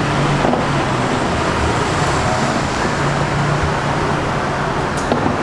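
Steady outdoor road-traffic noise with a low hum, and a couple of short clicks near the end.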